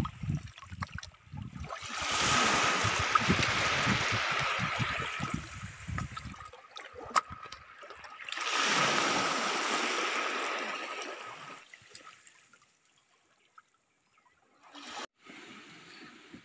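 Shallow seawater trickling and splashing among rocks in two long stretches, fading to near quiet after about twelve seconds.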